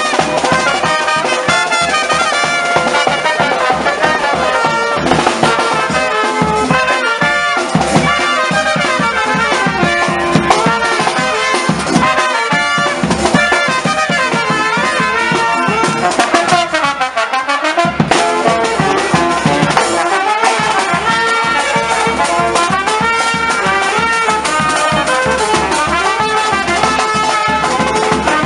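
A charanga, a Spanish street brass band, playing a tune on trumpets and trombones.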